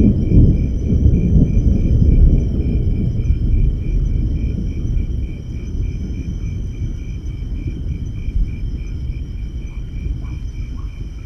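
Rolling thunder rumbling low, loudest at the start and slowly dying away. Insects keep up a steady high chirring over it, one trill pulsing about three times a second.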